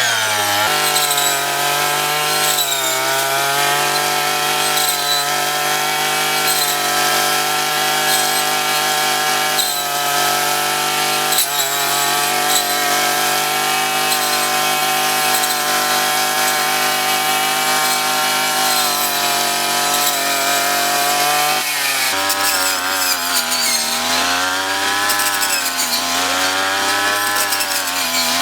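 Small 35 cc petrol engine of a handheld rice harvesting machine running at high speed, its pitch dipping briefly every second or two. About three-quarters of the way through it drops to a lower pitch and then rises and falls in a slow, regular cycle.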